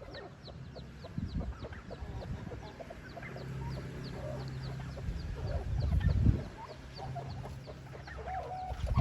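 Newborn chicks peeping, a steady run of thin, high falling peeps several times a second, with hens clucking underneath. A dull low rumble swells about six seconds in.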